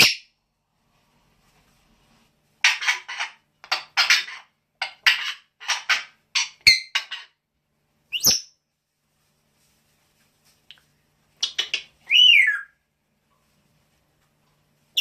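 Pet bird calling in a rapid series of short, scratchy chirps, then a quick rising whistle, and near the end a few more chirps and a falling whistle.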